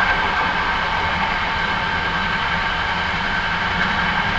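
Hankyu 9300 series electric train running between stations, heard from inside the car: a steady rumble of wheels on rail with a constant high whine.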